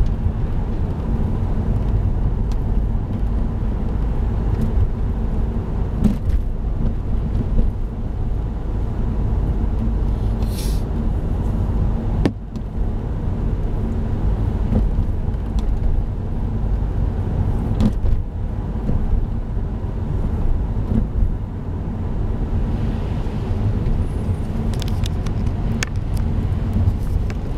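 Car interior noise while driving on a wet road: a steady low rumble of engine and tyres, with a few light knocks and a brief hiss about ten seconds in.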